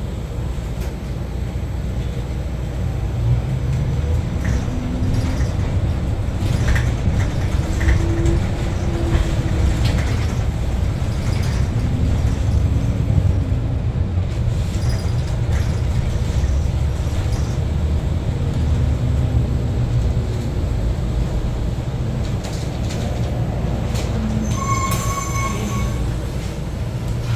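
Inside a New Flyer XE60 battery-electric articulated bus on the move: a steady road rumble, with the traction motors whining over it, their pitch rising and falling several times as the bus speeds up and slows. A short electronic beep sounds near the end.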